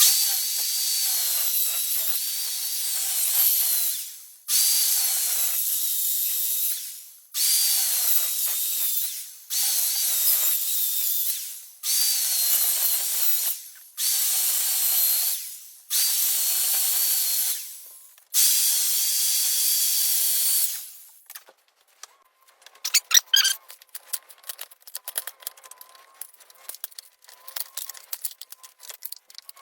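A power tool cutting into a 4x4 timber to make a 1-inch channel. It runs in eight short bursts of about two seconds each, with a high whine, and each burst winds down at its end. Light clicking and rattling follow near the end.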